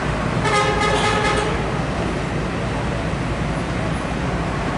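A bus air horn sounds one steady note for about a second, starting about half a second in, over the steady rumble of bus engines idling.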